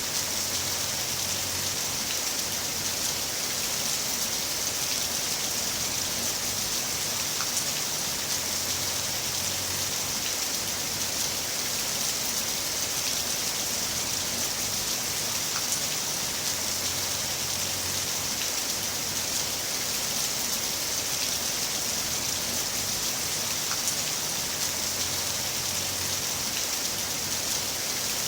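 Heavy rain falling steadily, a dense even hiss of drops with scattered sharper drop ticks.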